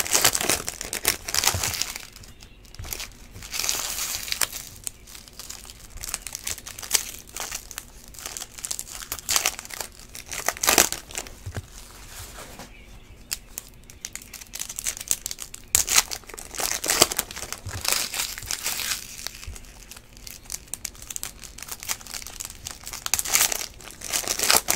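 2013 Panini Prizm Baseball foil card packs crinkling as they are handled and torn open, with cards shuffled in hand. The rustle comes in bursts every few seconds.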